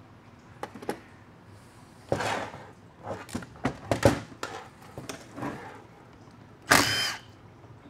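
Metal parts and tools clinking and knocking on a steel workbench, then near the end a cordless power driver spinning briefly with a high whine as it runs out bolts on a transmission valve body.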